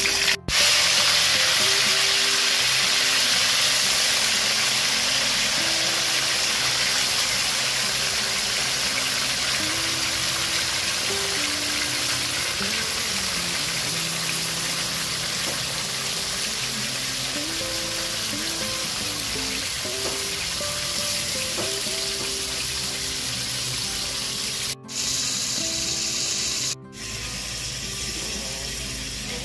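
Beef frying in hot oil in a wok: a loud sizzle that starts sharply as the meat goes in, then eases slowly. It cuts out briefly twice near the end. Quieter background music plays underneath.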